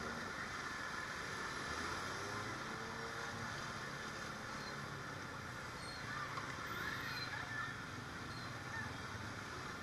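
Steady rush of heavy rain and floodwater splashing, with motorcycle and car engines running as traffic wades slowly through the flooded street.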